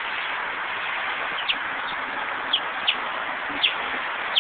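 White chickens peeping: several short, high notes that fall in pitch, about half a second to a second apart, over a steady hiss.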